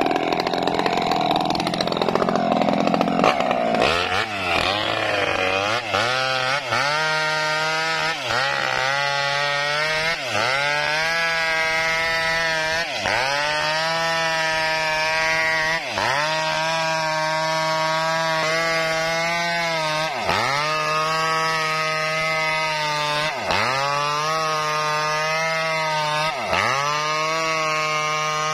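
Two-stroke chainsaw cutting a coconut palm log at high revs. It sounds rougher for the first few seconds, then settles into a steady high engine note that dips briefly every few seconds.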